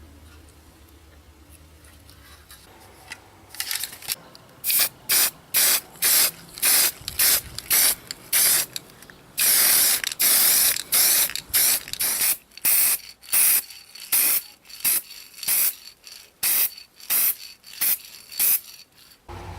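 Short hissing sprays in quick succession, about two a second, with one longer spray partway through; they begin a few seconds in.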